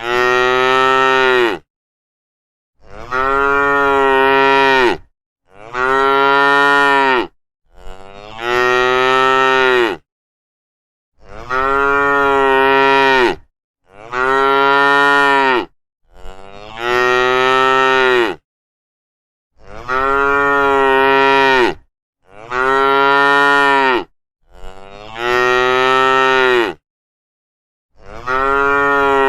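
Cattle mooing: a run of long lowing calls, each about two seconds, one after another with short silent pauses between them.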